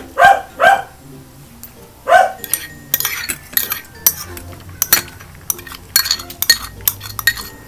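A dog barks three times in the first two seconds or so. Then comes a run of sharp clinks of cutlery and a ceramic bowl knocking against a plate.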